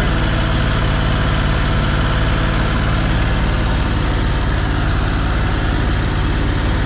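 An engine running steadily at an even speed, with no revving or change in pitch.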